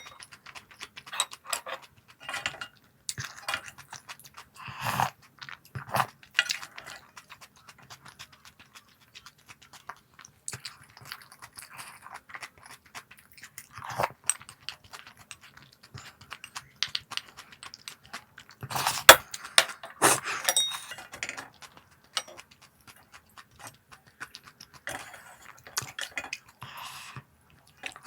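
Crunchy snacks being bitten and chewed close to the microphone: irregular crisp crunches, with a louder run of crackling about two-thirds of the way through.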